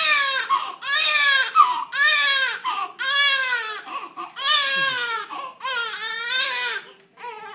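Newborn baby crying: a string of short wails, about one a second, each rising then falling in pitch, quieter near the end.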